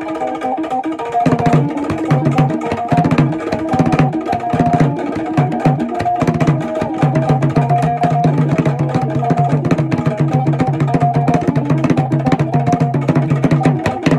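Hand drums played with bare hands in a fast, dense rhythm over a guitar line. The drums come in about a second in and stop at the very end, leaving the guitar.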